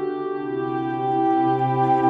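Ambient background music of sustained organ-like chords, shifting to a new chord about half a second in.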